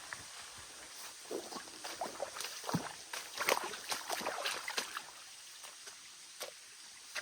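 A hiker's footsteps over rough ground: irregular crunches and scrapes, busiest in the middle and thinning out near the end.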